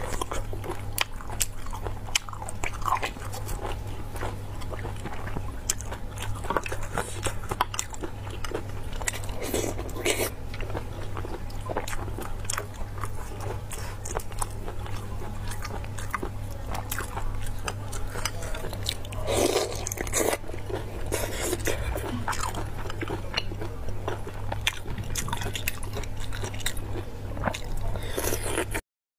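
Close-up eating sounds of sea snail meat being bitten and chewed, with many wet mouth clicks and smacks over a steady low hum. The sound cuts off suddenly near the end.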